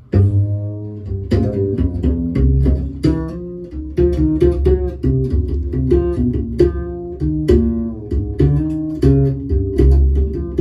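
Instrumental music of plucked guitar over bass, played back through Holimar 3/8 loudspeakers driven by a NAD 304 amplifier and heard in the room.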